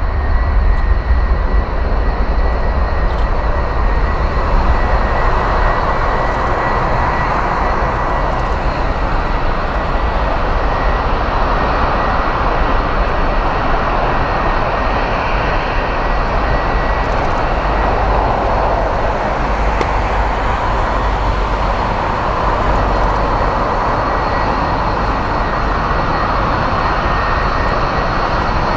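Airbus A330neo's two Rolls-Royce Trent 7000 turbofans at takeoff thrust through the takeoff roll and climb-out: a steady jet roar with deep rumble underneath.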